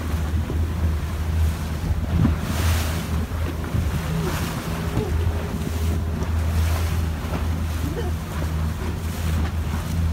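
Boat at sea: a steady low engine hum under wind buffeting the microphone and waves washing, with a few louder surges of wind and water.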